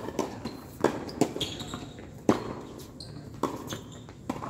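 Tennis ball struck by rackets and bouncing on a hard court during a rally: a string of sharp pops about every half second to a second. The loudest come right at the start and a little past two seconds in.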